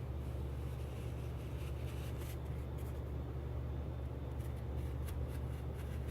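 Steady low hum with a few faint, light clicks and small handling noises scattered through it, the loudest of them between about four and a half and five and a half seconds in.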